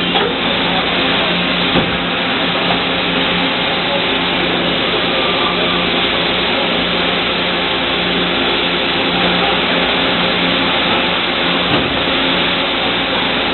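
Injection moulding machine running through its cycle: a steady mechanical hum with a few held tones. A sharp click comes about two seconds in and another near the end.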